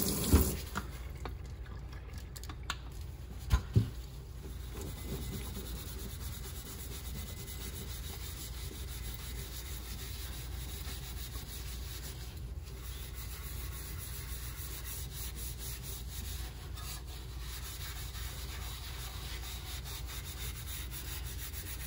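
Gloved hand scrubbing an epoxy-resin-coated tumbler with abrasive matte paste: a steady wet rubbing noise as the glossy resin is sanded down to a matte finish. A few sharp knocks in the first few seconds.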